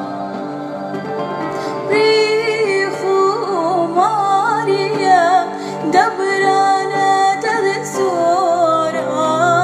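A woman singing a Chaldean Easter hymn in Sureth (Neo-Aramaic) over sustained instrumental accompaniment; her voice comes in about two seconds in, after a short instrumental passage.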